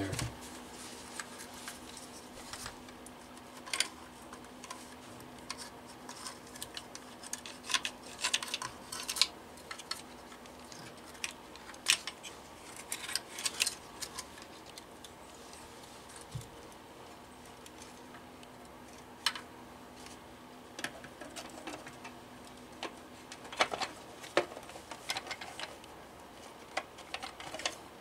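Scattered light clicks and knocks of hard plastic and metal telephone parts being handled as a Western Electric rotary desk telephone's housing, chassis and base plate are fitted back together, with bunches of quick clicks about a third of the way in, around the middle and near the end.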